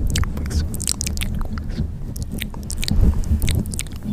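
A close-miked insect chewing its food: a quick, irregular run of crisp clicks from its biting mouthparts, over a steady low rumble.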